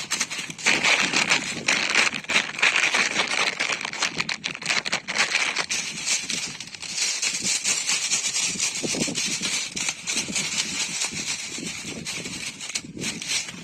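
Fast, dense ASMR tapping and scratching with a gibi stick: a steady stream of quick clicks over a crackly, scratchy rustle that eases off near the end.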